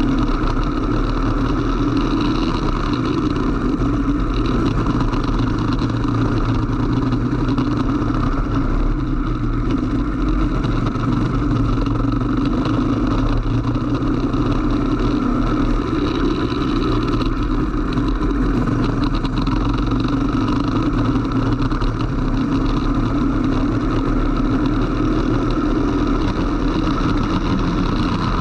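Racing kart engine running steadily at speed, heard close up from a camera mounted on the kart, over a constant rush of wind and water spray from the wet track.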